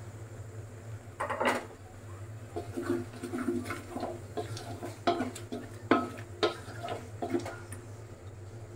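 Metal utensils knocking, clinking and scraping against a cooking pot and bowls, a dozen or so irregular strikes, over a steady low hum.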